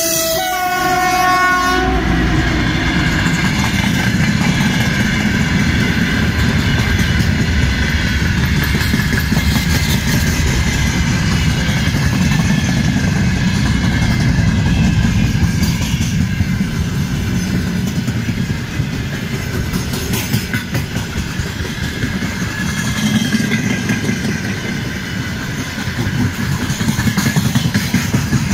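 VL10K electric locomotive sounds its horn as it passes, for about the first two seconds. The freight wagons behind it then roll by with a steady rumble and the clatter of wheels over rail joints.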